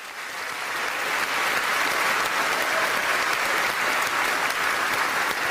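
Studio audience applauding, a dense, steady clapping that swells up over about the first second.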